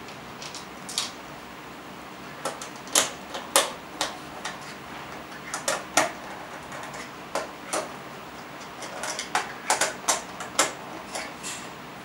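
Plastic case of an Orpat table clock being handled and pressed together: irregular sharp clicks and taps as the back cover is fitted onto the front cover.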